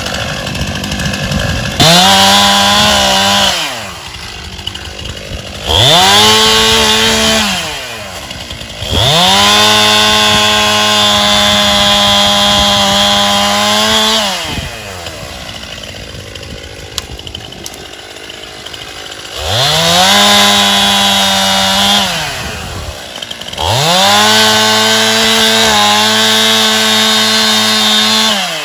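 Stihl two-stroke chainsaw revved to full throttle five times, in bursts of about two to five seconds, the longest near the middle. It is cutting through saplings and brush and drops back to idle between cuts.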